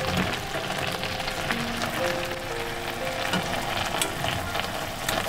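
Perilla leaves and anchovies simmering and sizzling in their seasoned braising liquid in a heavy pan while the liquid is spooned over them, with a couple of light taps from the utensil near the end.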